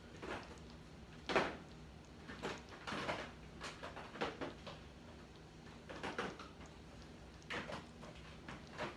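Rummaging through a box of spice containers in a low kitchen cabinet: scattered knocks and clatters of jars and containers being moved, the sharpest about a second and a half in, over a faint steady low hum.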